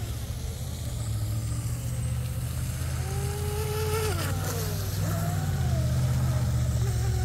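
Proboat Recoil 2 18-inch brushless RC deep-V boat running out on the water: its motor whine rises and falls about three seconds in, then swings again near the end, over a steady low hum.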